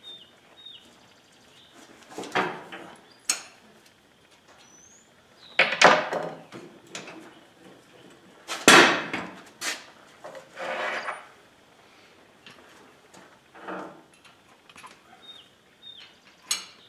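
Steel three-point-hitch links, pins and washers of a compact tractor clanking and scraping as they are handled. The knocks come one at a time, the loudest about six and nine seconds in.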